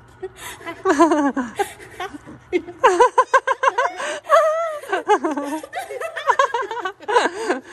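People laughing heartily in several bursts of rapid, repeated ha-ha pulses, one about a second in and a longer run from about three seconds on.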